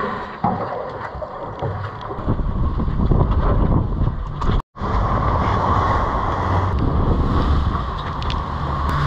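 Wind buffeting the microphone over sea water around a boat, with a low steady engine drone that grows stronger after the first couple of seconds. The sound cuts out completely for a moment about halfway through.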